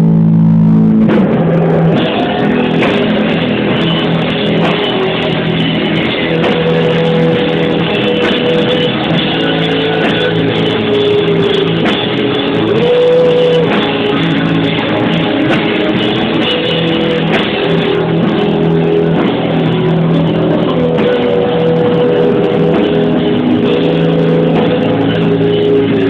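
Live rock band playing: electric guitars, bass and drums in full swing, with little or no singing.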